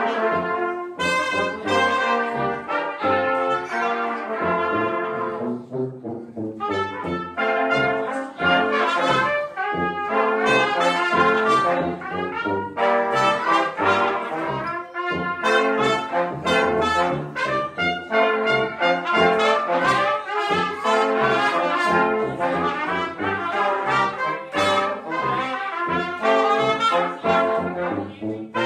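Brass quintet of trumpets, French horn, trombone and tuba playing together live, with many short, separately tongued notes.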